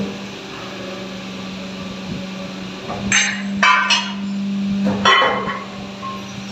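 Hydraulic alligator shear cycling with no workpiece. The hydraulic power pack hums steadily while the upper jaw opens and closes. Sharp metallic clanks come between three and four seconds in and again at about five seconds.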